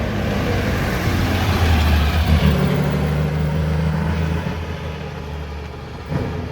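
Porsche 911 RSR's flat-six engine running as the car drives past, loudest about two seconds in and then fading away.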